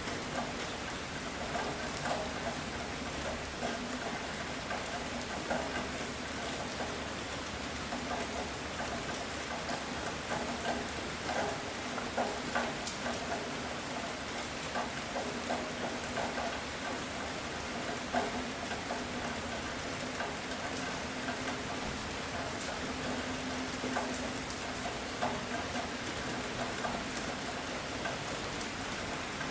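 Heavy rain falling steadily, with many single drops striking close by as short sharp ticks all through.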